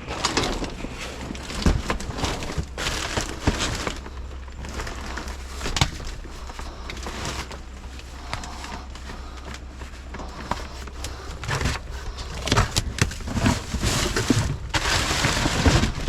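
Scrap and junk being handled and rummaged through: irregular knocks, clatters and rustling, over a steady low hum.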